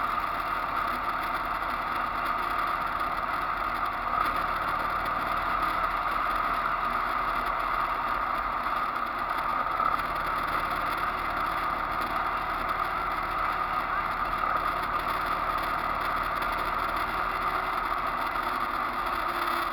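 Steady wind and engine noise of a motorcycle cruising at an even speed, heard from a camera mounted on the bike.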